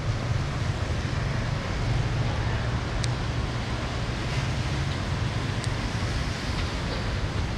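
Steady hiss of rain on a wet street, with a low rumble of wind on the microphone. Two sharp drip ticks land about three and five and a half seconds in.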